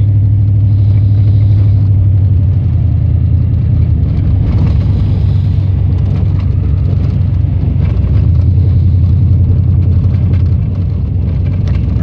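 Steady low drone of a vehicle's engine and tyres on a wet, slushy road, heard inside the cab, easing slightly about ten and a half seconds in.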